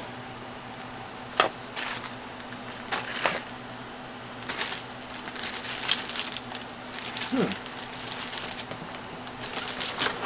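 Clear plastic bags of injection-moulded model-kit sprues crinkling and the plastic parts clicking as they are handled and set down, in irregular short bursts over a faint steady hum.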